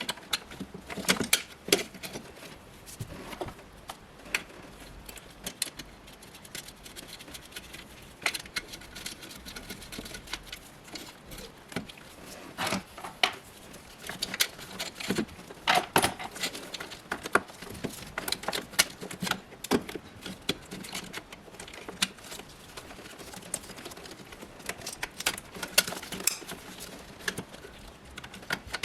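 Irregular light metallic clicks and clinks of hand tools and bolts being worked on during removal of the alternator, with no steady rhythm.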